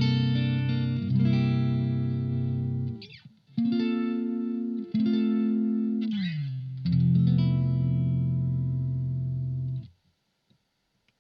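Electric guitar played through a Blackstar ID:Core Stereo 40 amplifier with an effect on: sustained chords that break off and restart, a slide down in pitch just past the middle, then a long ringing chord that is cut off about a second before the end.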